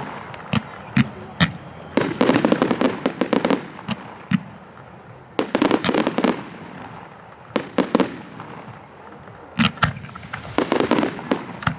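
Aerial fireworks going off: single sharp bangs from bursting shells, with three spells of dense crackling, about two seconds in, about five and a half seconds in, and near the end.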